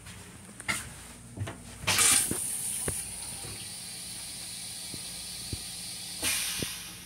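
Stainless steel toilet in a Metro-North M7 railcar restroom flushing. After a few clicks, a hissing rush of water starts about two seconds in and holds steady, and a second louder burst comes near the end.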